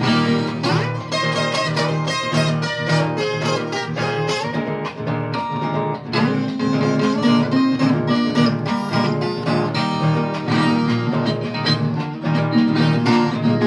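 Viola caipira playing an instrumental passage of quick plucked notes, with a steady low accompaniment underneath.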